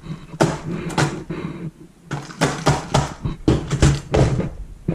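Clear plastic compartment tackle box being handled on a table and its hinged lid swung shut and latched: a quick run of sharp plastic clacks and knocks.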